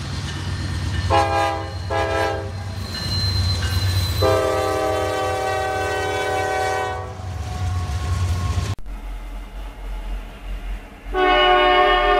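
Diesel freight locomotive air horn sounding two short blasts and then one long blast of about three seconds, a chord of several notes over the low rumble of the engine. After an abrupt cut, another Norfolk Southern locomotive horn blast starts near the end.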